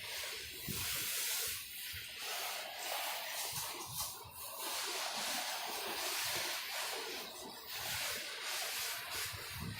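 Water spray from a hand-held hose spray gun hissing steadily against a car's paintwork as dirt and bird droppings are rinsed off, easing off briefly a couple of times.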